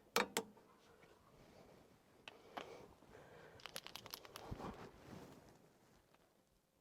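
Torque wrench clicking twice as the brake bolts reach the set torque, followed by faint scattered clicks and knocks of tools being handled.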